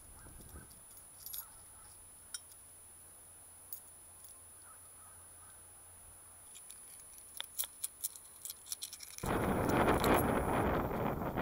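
Small clicks and clinks of old coins being handled, coming thick and fast in a quick run near the end. Then, about nine seconds in, wind starts buffeting the microphone loudly.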